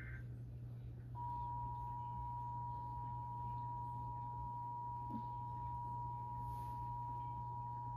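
Emergency Alert System broadcast: the last moment of a SAME header's warbling data burst, then, about a second in, the EAS two-tone attention signal (853 and 960 Hz) comes on and holds steady. A low steady hum sits underneath.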